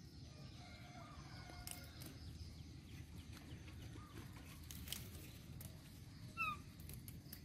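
A few faint sharp snaps as water spinach stems are picked by hand. About six and a half seconds in, a bird gives a short call that falls step by step, and fainter chirps come earlier.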